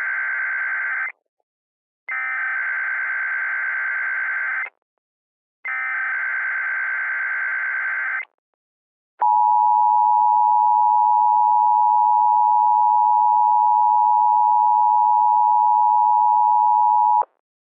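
Emergency Alert System tones: the SAME header's data bursts, each a few seconds of dense electronic tones with short gaps between them (the first is already under way, two more follow). Then the steady two-tone EAS attention signal is held for about eight seconds and cuts off.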